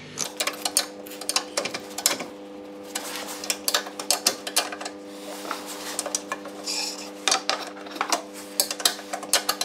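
Steel hand tools clicking and clinking on metal as 12 mm radiator mounting bolts are tightened with a spanner: an irregular string of sharp clicks, some in quick runs.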